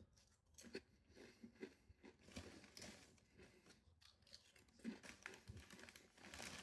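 Faint crunching of hand-cooked potato crisps being bitten and chewed, a scatter of short, soft crackles.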